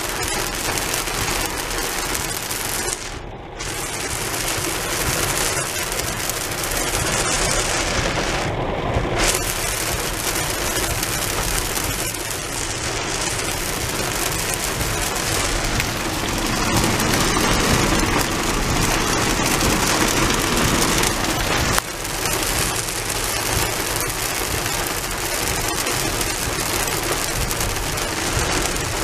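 Heavy rain pelting the roof and windshield of a moving car, heard from inside the cabin as a dense, steady drumming hiss, with a deeper swell a little past halfway.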